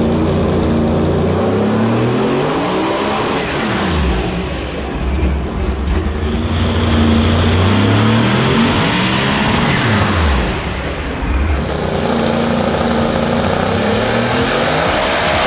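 Single-turbo HEMI V8 drag engine with a blow-through carburetor, running under full load on a hub dyno at high boost (45 psi on the wastegates). The revs rise and fall several times, and it taps the 8,600 rpm rev limiter.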